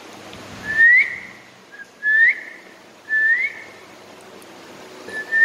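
A person whistling four short notes, each sliding upward in pitch, one every second or two.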